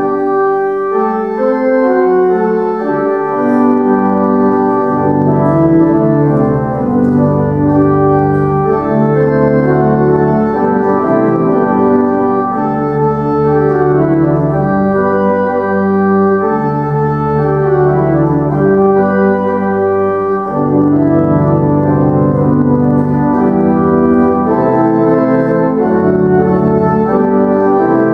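Organ playing a slow hymn tune in sustained chords over a held bass line, the bass note changing every second or two.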